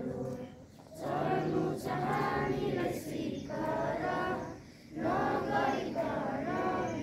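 A group of schoolchildren singing a song together, with two short pauses between phrases: about a second in and near five seconds in.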